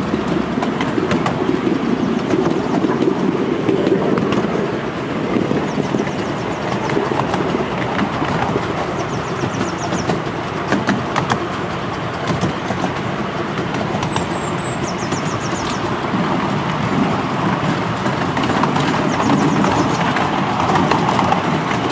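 Miniature steam railway train running, heard from a passenger car: a steady rumble of wheels on the rails with occasional light clicks. Birds twitter faintly a few times.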